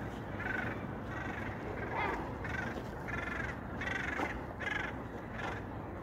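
Gulls calling: a series of about eight short calls, spread fairly evenly through the six seconds.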